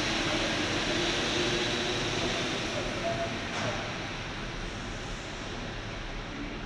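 Driverless Paris Métro Line 14 train running: the steady rumble and hiss of the rubber-tyred metro in motion, easing slightly quieter over the last few seconds.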